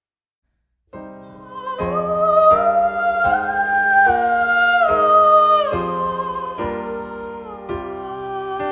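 About a second of silence, then a new piece of music begins: sustained chords changing about once a second under a slow, gliding melody line with a slight waver.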